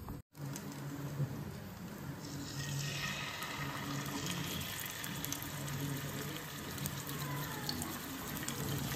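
Spice-marinated fish frying in shallow oil in a nonstick pan: a steady sizzle that grows louder a couple of seconds in.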